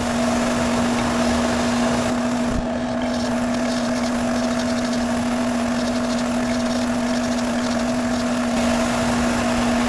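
Electric buffing wheel running with a steady motor hum while a lathe locking nut is cleaned on it. From about two seconds in until near the end, a scratchy rasp is added as the part is worked against the wheel.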